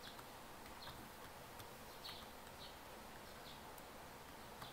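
A few soft clicks of keyboard typing and several short, high bird chirps over a faint steady hiss.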